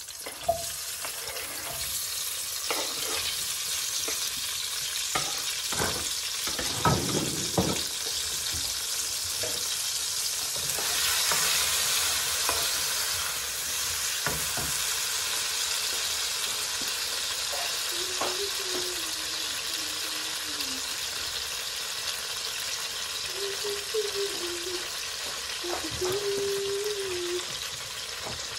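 Chopped fresh tomatoes sizzling in hot olive oil in a frying pan, stirred with a wooden spatula. The sizzle starts as the tomatoes go in and swells about ten seconds in, with a few knocks of the spatula against the pan early on.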